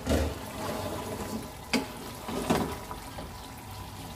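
A pan lid is lifted with a low thump at the start. Then a wooden spatula stirs a simmering, bubbling meat-and-kachnar (orchid-tree bud) curry, with a couple of louder scrapes against the pan about 1.7 and 2.5 seconds in.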